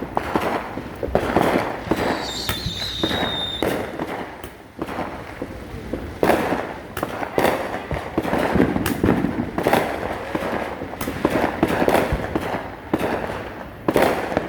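Ground fountain firework spraying and crackling, with dense sharp pops and cracks, and a brief high whistle about two seconds in.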